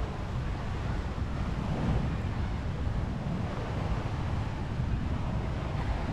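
Wind buffeting the microphone in a steady low rumble, over a constant wash of beach surf.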